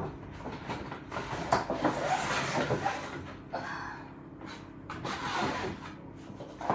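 Stiff paper shopping bag rustling and crinkling as it is handled and a box is pulled out of it, with a few sharp taps among the rustle.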